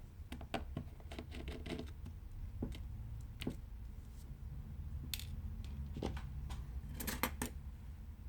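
Small repair tools clicking and scraping against a smartphone's parts during disassembly, in irregular light clicks with a quick cluster in the first couple of seconds and another near the end, over a low steady hum.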